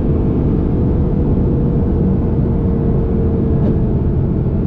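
Inside a sports car's cabin at highway speed: steady road and engine noise with a faint, even engine drone.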